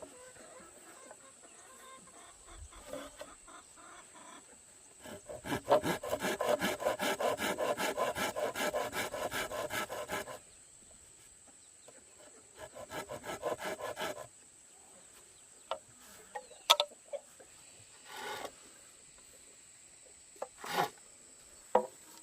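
Bamboo being worked by hand: a fast, even run of rasping strokes lasting about five seconds, a shorter run a couple of seconds later, then a few separate knocks and taps.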